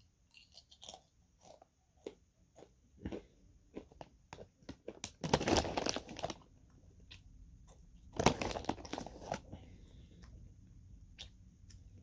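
Banana chips being bitten and chewed close to the microphone: a run of scattered crisp crunches, with two louder, dense bursts each lasting about a second, around five and eight seconds in.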